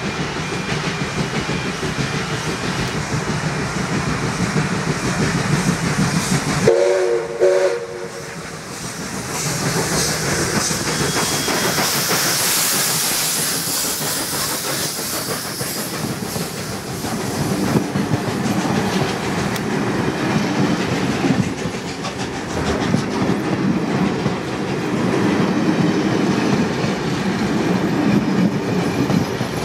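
NSWGR 59 class steam locomotive 5917 passing with its train. A short blast of its steam whistle comes about seven seconds in, then a hiss of steam as the engine goes by. After that comes the steady clickety-clack of the carriage wheels over the rail joints as the coaches roll past.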